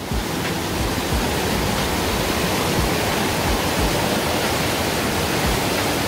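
Mountain stream pouring over boulders in a series of small cascades, a steady rush of water. The stream is running high after recent heavy rain.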